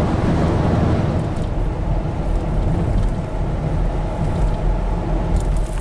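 Steady low road rumble of a VW campervan driving on the road, engine and tyre noise heard from inside the cab.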